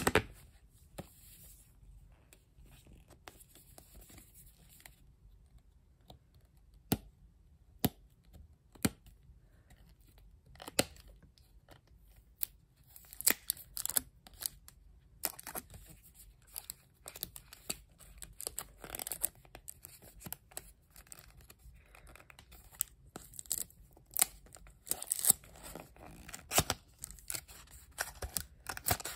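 Packaging handled by hand: scattered taps and clicks at first, then, from about halfway, a paperboard phone-case box being torn open, with its seal tearing and the cardboard flaps scraping and rustling.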